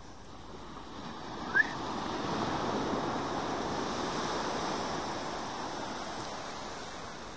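Surf breaking and washing on a sandy beach, a broad hiss that swells up over a few seconds and then fades. About one and a half seconds in, a single short, high rising chirp.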